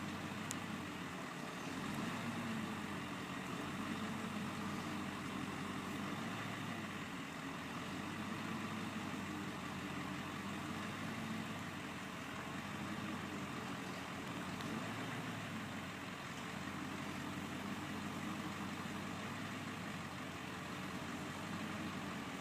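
Bucket truck's engine idling steadily, slowly swelling and easing, with no chainsaw cutting.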